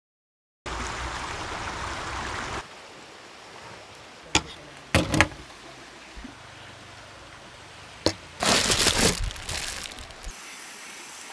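Rushing river water that starts suddenly and cuts off about two seconds later. Quieter ambience follows, broken by a few sharp clicks or knocks and a short burst of rustling noise.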